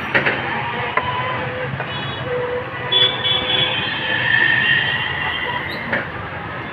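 Busy street traffic noise with auto-rickshaws going by. A couple of sharp knocks of a cleaver on a wooden chopping block come near the start, and a steady high-pitched tone sounds for about two seconds in the middle.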